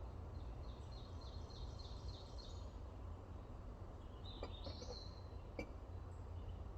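Songbird singing: a quick run of about eight repeated high notes in the first few seconds, then a short call about four and a half seconds in, over a steady low rumble. A few faint clicks near the middle.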